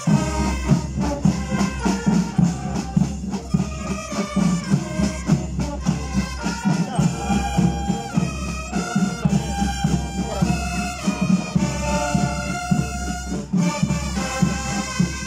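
Marching band playing: brass including sousaphones carries the melody over a steady beat of snare and bass drums. The drums and low brass come in right at the start.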